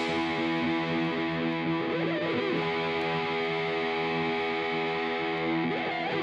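Background music: distorted electric guitar holding sustained chords.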